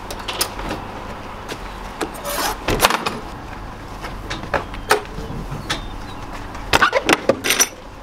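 Metal clanks and knocks of a horse trailer's latches, chains and padded divider being handled, with a quick run of rattling knocks about seven seconds in, over a low steady hum.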